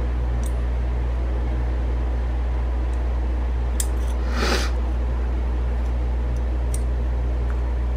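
Steady low mechanical hum, with a few faint clicks and a short scrape about four and a half seconds in from small steel parts of a Savage 720 breech block being handled and the firing-pin retaining pin being fitted.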